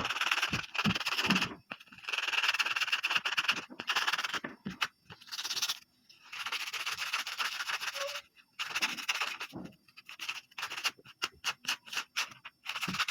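Hands working homemade slime: a series of scratchy, rubbing stretches a second or two long, broken by short pauses.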